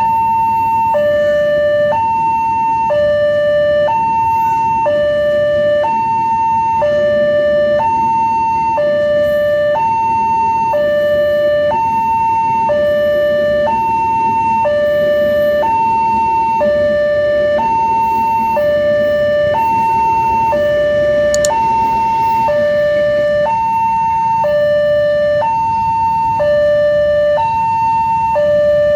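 Indonesian railway level-crossing warning siren sounding a steady two-tone hi-lo alarm, each tone held about a second, signalling that a train is approaching or passing and the crossing is closed. A steady low rumble runs underneath.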